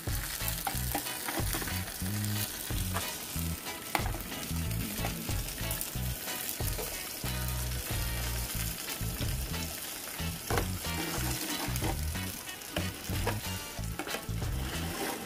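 Leg of lamb sizzling and crackling as it roasts on a rotisserie spit over hot charcoal, with fine pops throughout. An uneven, gusty low rumble runs underneath.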